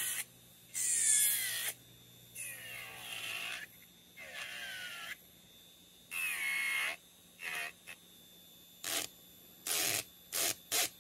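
Melody Susie SR3-Jade rechargeable nail drill with a ceramic barrel bit grinding down nail product in short passes, thinning it for a soak-off. Its whine slides down and up in pitch with each pass: four longer passes, then quicker short touches near the end.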